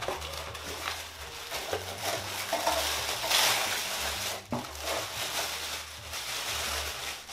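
Cardboard box flaps opened and white tissue paper rustling and crinkling as it is pulled out of the box, loudest a little past three seconds in, with a sharp click about four and a half seconds in.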